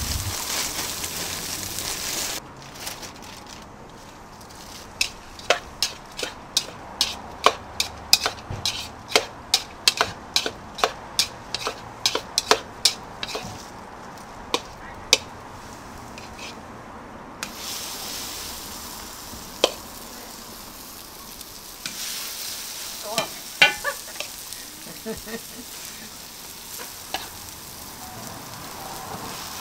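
Oil sizzling on a hot flat-top griddle, then a plastic spatula beating egg and shredded vegetables in a melamine bowl, clacking against the bowl about twice a second. After that the egg-and-vegetable batter sizzles on the griddle, with a few spatula clinks.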